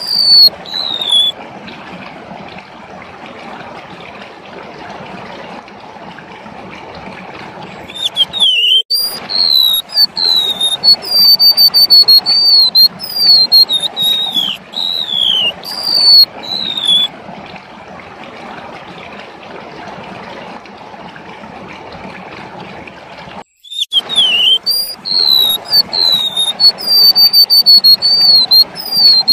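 Golden-bellied gerygone (remetuk laut) singing a run of high, thin whistled notes, many sliding downward. It sings briefly at the start, then in a bout from about eight seconds in lasting about nine seconds, and again from about twenty-three seconds in. Between the bouts there is a steady background hiss, and the sound cuts out for a moment just before each bout begins.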